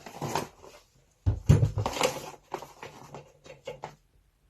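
Small rotary-tool accessory bits and their plastic case being handled: a run of clicks, rattles and rustles, with a louder knock about a second and a half in.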